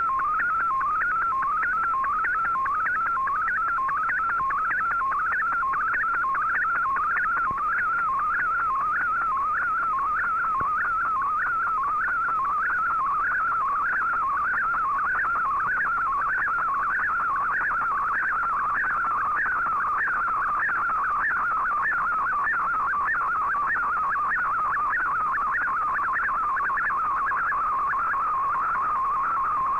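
Digital picture signal from a shortwave broadcast in fldigi's MFSK image mode, received on an Icom IC-R8600: a warbling tone between about 1 and 2 kHz that sweeps up and down roughly twice a second over faint radio hiss, each sweep painting part of the picture. Near the end it settles into one steady tone.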